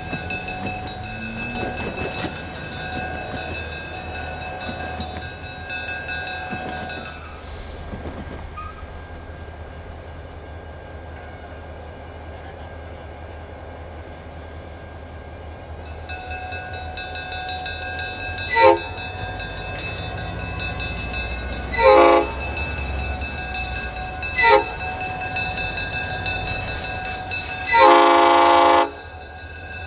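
Illinois Central diesel locomotive rumbling as it approaches a grade crossing, with the crossing bells ringing steadily. In the second half its air horn sounds four blasts, the last held longest, the warning for the crossing.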